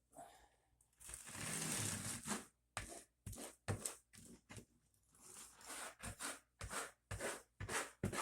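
Floor adhesive being spread on the subfloor: a long scrape, then a run of short, irregular scraping strokes about two a second.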